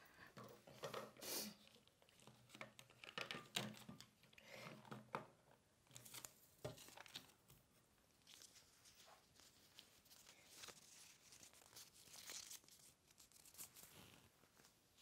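Faint, irregular rustling and crinkling, a run of short handling noises of uneven loudness.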